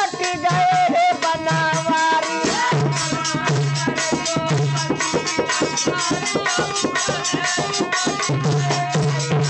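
Instrumental passage of a Hindi bhajan: a harmonium plays the melody over a fast dholak rhythm, with the metal jingling of a chimta.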